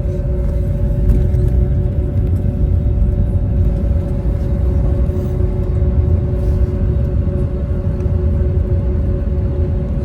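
Steady low rumble inside an Airbus A320 cabin on the ground, with two steady humming tones over it.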